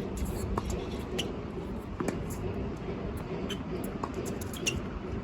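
Strong wind rumbling on the microphone, with a few faint, irregular knocks.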